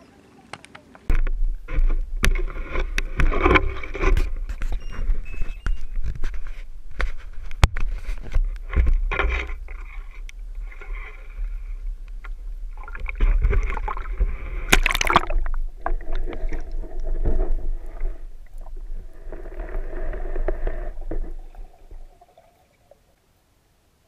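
Handling noise from a camera on a pole being pushed through reeds into lake water: a deep rumble with many knocks, scrapes and splashing water. About 22 seconds in it cuts to almost nothing as the camera goes under the surface.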